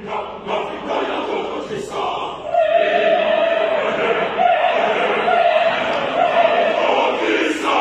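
Choir singing an African choral piece. Short phrases give way, about two and a half seconds in, to a long, loud high note held by the voices until near the end.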